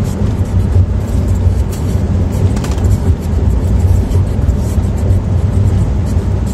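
Steady low rumble of a car's engine and tyres on the road, heard inside the cabin while driving.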